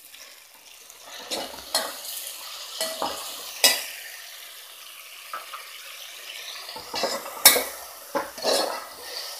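Tomatoes and onions sizzling in oil in a metal pot while a steel spoon stirs them, with a steady frying hiss under sharp clinks and scrapes of the spoon against the pot; the loudest clink comes about seven and a half seconds in.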